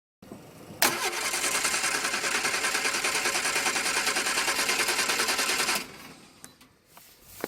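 Triumph Spitfire's four-cylinder engine turning over on the starter motor in a fast, even rhythm for about five seconds without catching, then stopping. The ignition coil is unplugged, so it cannot fire.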